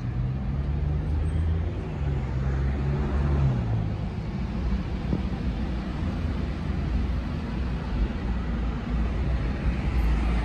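Road traffic on a busy city street: cars and buses passing in a steady rumble, with a vehicle engine's low hum over the first few seconds.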